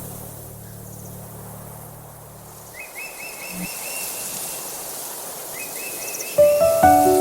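A low, steady sound that stops about three seconds in, followed by high, repeated bird chirps in short trills. Near the end, gentle melodic music of single plucked notes comes in loudly.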